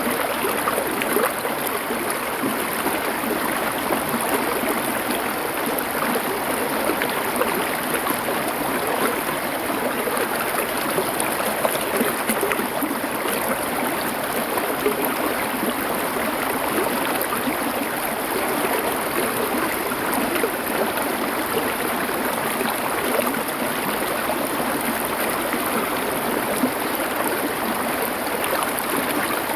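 Stream water flowing over stones in a steady, continuous babble.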